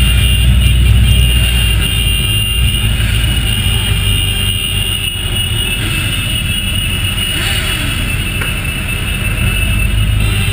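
Motorcycle engines in a slow-moving group ride, a steady low rumble picked up through a GoPro Hero 2's housing on one of the bikes. The rumble is strongest in the first couple of seconds.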